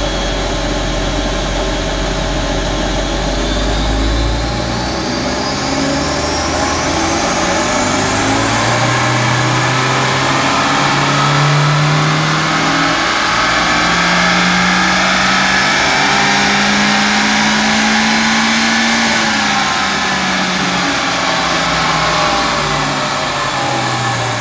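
Toyota 3S-GTE 2.0-litre turbocharged four-cylinder engine of a 1991 Celica GT-Four making a power run on an all-wheel-drive chassis dyno. The engine note climbs steadily in pitch for most of the run, with a high whine rising along with it, peaks a few seconds before the end, then winds down.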